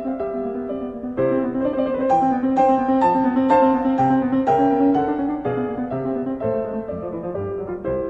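Background music led by piano, a gentle melody of held notes changing about twice a second.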